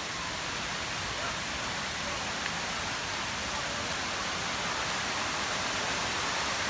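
Steady rushing water, an even hiss of a waterfall or stream.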